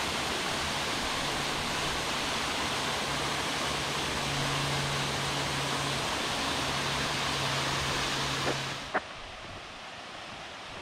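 Steady rush of a mountain waterfall. It cuts off suddenly about nine seconds in, leaving a fainter steady noise.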